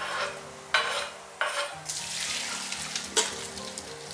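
Chopped green peppers tipped into a hot frying pan and stirred, sizzling in several loud surges, with a sharp knock of the utensil against the pan about three seconds in.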